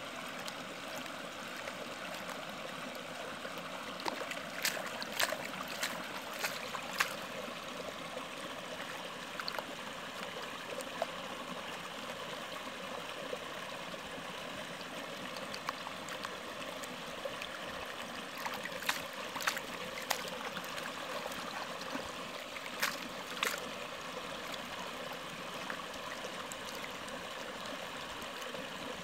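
Shallow creek water running steadily while muddy sediment and water are swirled in a plastic gold pan. A few sharp clicks come in two clusters, about four seconds in and again about twenty seconds in.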